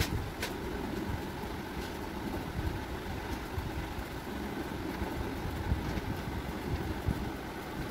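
Steady low rumbling background noise with a few faint clicks, one about half a second in.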